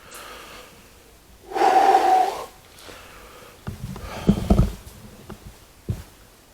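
A short breathy voice sound about one and a half seconds in. Later comes a cluster of dull thumps and, near the end, a single knock, which the investigator takes for walking.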